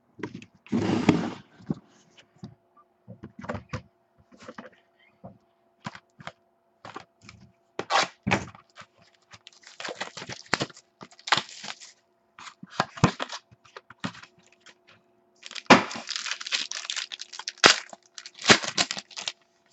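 Handling and opening a sealed box of trading cards: irregular crackling, tearing and crinkling of wrapping and packs, with clicks and knocks of cardboard being handled. The longer crackly stretches come about a second in and again around ten and sixteen seconds in.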